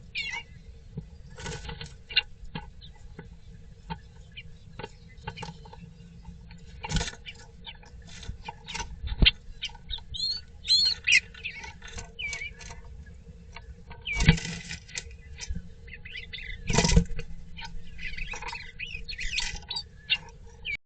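Small birds chirping and calling in quick, scattered notes, mixed with frequent clicks and several louder knocks. A faint steady hum runs underneath.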